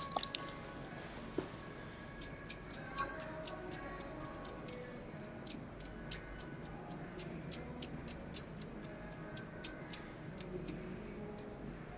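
Rapid, irregular sharp clicks of a steel cuticle pusher picking and scraping old polish off fingernails while a manicure is removed, starting about two seconds in.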